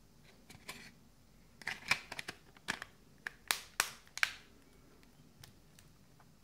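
Plastic back cover of a Lenovo P70 smartphone being pressed onto the phone: a quick run of sharp clicks as its clips snap into place, loudest in the middle.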